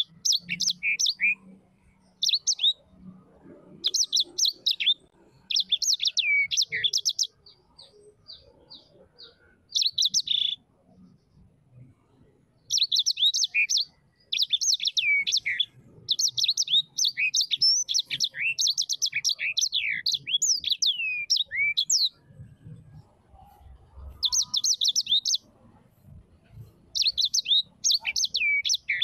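A bird singing in repeated phrases of quick high chirps and down-slurred notes, with pauses of a second or two between phrases; in one pause a short run of evenly spaced single chirps, about two a second.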